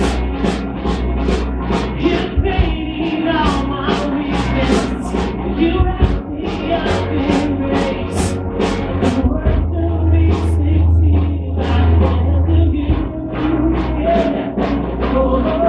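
A worship band playing a rock-style song, with electric and acoustic guitars, deep bass and a steady beat about two strokes a second, under group singing.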